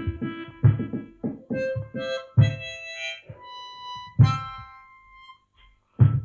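Harmonica played with rhythmic breathed chords and a few held single notes. A short pause comes near the end before the chords start again.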